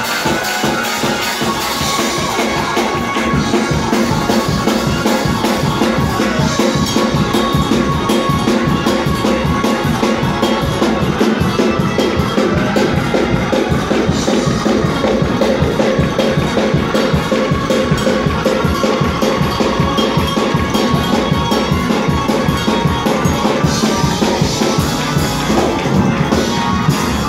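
Live gospel music from a Hammond C3 tonewheel organ with a drum kit keeping a fast, steady beat.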